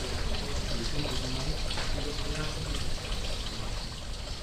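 Steady trickling, pouring water, with faint voices in the background.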